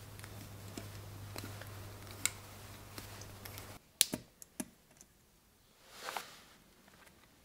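Small metal clicks and ticks of needle-nose pliers gripping and turning a Schrader valve core in a wheel's valve stem, the sharpest clicks about four seconds in. A faint steady hum runs under the first half and a short soft rush of noise comes about six seconds in.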